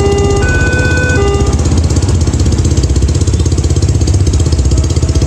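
An engine running with a fast, even, low pulsing. Over its start, a two-tone signal alternates between two pitches and stops about a second and a half in.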